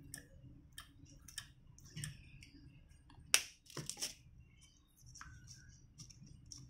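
Small plastic clicks and taps from handling a squeeze bottle, a plastic cup and a plastic spoon, with one sharp knock a little over three seconds in.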